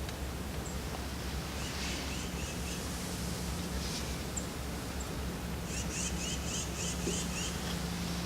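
Small songbirds calling in the woods: two quick runs of repeated short notes, several a second, with thin high chirps between them, over a steady low background hum.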